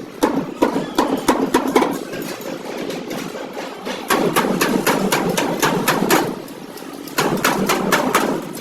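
Hammer blows on the sheet-metal body of a Suzuki Bolan van being restored, in quick runs of several strikes a second. The blows ease off in the middle and again briefly about two-thirds of the way through.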